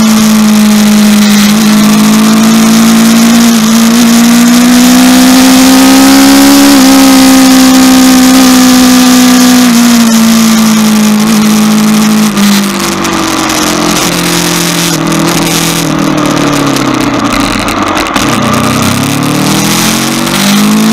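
Aprilia RSV4's V4 engine running at a steady cruise of about 100 km/h, with heavy wind rush on the microphone. About twelve seconds in the steady engine note eases off and other tones fall and rise as the bike draws alongside a truck, then the steady note returns near the end.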